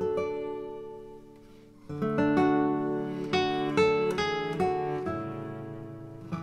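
Acoustic guitar background music: a chord rings out and fades, then a run of plucked notes starts about two seconds in.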